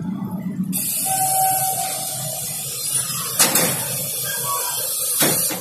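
Low rumble of a passenger train pulling out of the station, then from under a second in a loud steady hiss with two short knocks, which cuts off abruptly near the end.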